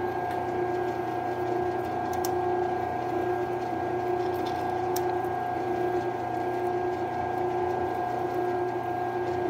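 Grizzly G0602Z metal lathe running at steady speed with an even whine, while a drill bit in the tailstock bores into the end of a spinning pin. A few faint ticks sound over it.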